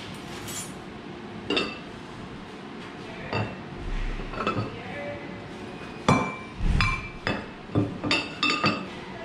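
Ceramic lids and casserole dishes clinking as they are handled: a string of sharp, ringing clinks, a few at first and then a quick cluster in the second half.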